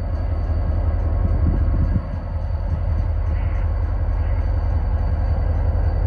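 Diesel locomotive running nearby, a heavy low rumble that swells up at the start and then holds steady.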